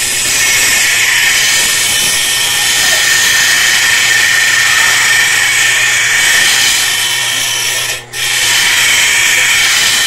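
Metal blade being ground against a grinding wheel spun by a washing-machine motor, a loud steady grinding hiss that breaks off briefly about eight seconds in.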